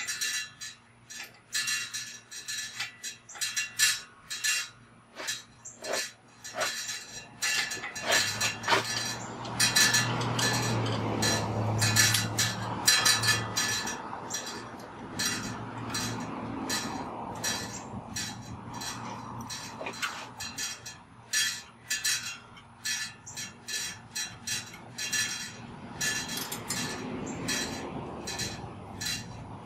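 Hand tools clicking and clinking against a bicycle's rear brake-arm clamp as it is unscrewed and taken off: many small, sharp metallic clicks in irregular runs. A low hum rises under them for a few seconds around the middle.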